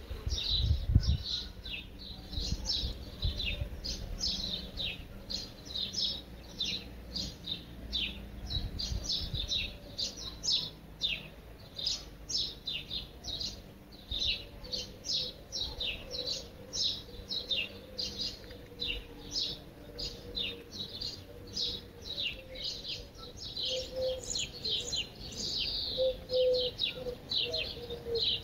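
Small songbirds chirping: a steady run of short, high, falling chirps, two or three a second. A brief low rumble sounds about a second in.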